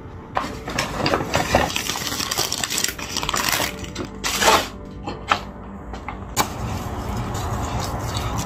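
Clear plastic bags of wrapped candy bars crinkling and rustling in irregular bursts as they are handled and piled up. Near the end, a knife cuts napa cabbage on a wooden cutting board.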